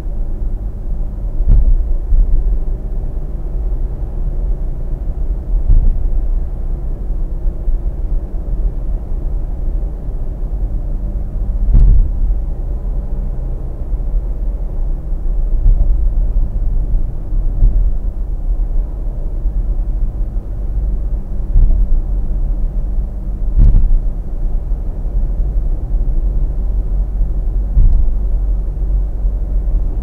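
Road and tyre noise of a car at about 70 km/h, heard inside the cabin through a dashcam: a steady low rumble, broken every few seconds by a short sharp thump.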